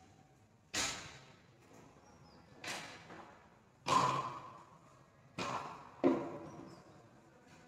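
Five sharp knocks or thuds on a hard surface, irregularly spaced, each with a short echoing tail.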